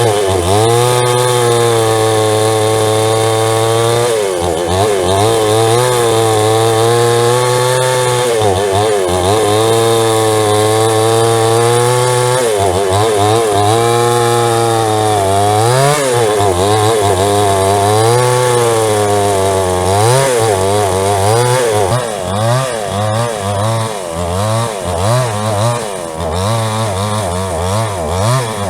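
A JCK 22-inch two-stroke gasoline chainsaw running loud at high revs, its pitch dipping now and then. In the last several seconds the throttle is blipped up and down in quick, short revs.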